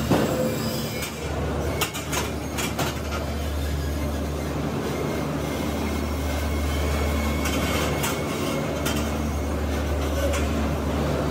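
Steady rumble of factory machinery with a constant low hum, with scattered sharp metallic clicks and knocks in the first few seconds and again about eight seconds in.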